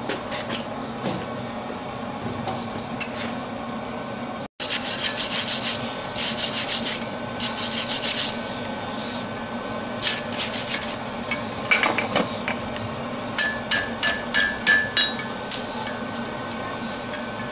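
A wire brush scrubbing scale off a hot twisted steel bar on an anvil: several rough, hissing strokes in quick groups. Near the end comes a quick run of short, light metallic taps that ring briefly, over a steady background hum.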